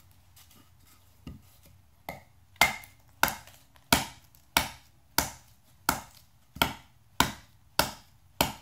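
Forged railroad-spike knife blade chopping into a wooden log: a couple of light taps, then about ten sharp angled chops at a steady pace of a little under two a second. The blows are an abuse test of the case-hardened blade's edge retention.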